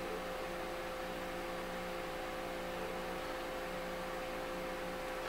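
Steady electrical mains hum with a faint hiss, unchanging throughout: background room tone with no other sound.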